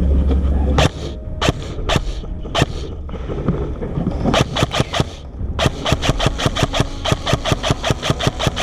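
ICS airsoft electric rifle firing single shots. A few scattered sharp shots come first, then from about halfway a fast, steady run of about four to five shots a second. Low wind rumble on the microphone stops about a second in.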